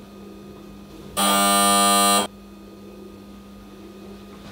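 Electric doorbell buzzer pressed once, a harsh buzz lasting about a second, over a steady low hum.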